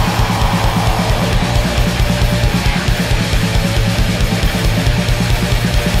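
Black/doom metal recording: heavily distorted electric guitar and bass over continuous drumming from a full drum kit, loud and unbroken.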